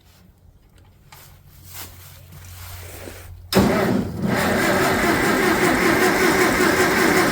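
Farmall 400 tractor's gasoline engine being cranked over by its starter, kicking in suddenly about halfway through and holding at a steady level.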